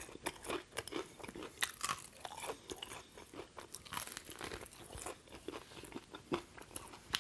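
Close-miked crunching and chewing of a crispy fried chicken wing: the breading cracks in many short, sharp crunches as the wing is pulled apart and bitten, with quieter chewing between.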